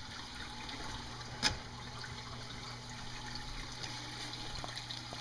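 Water trickling and splashing steadily into a reef aquarium's glass sump from the overflow drain, over a steady low hum. One sharp click comes about one and a half seconds in as the wooden stand's cabinet door is handled.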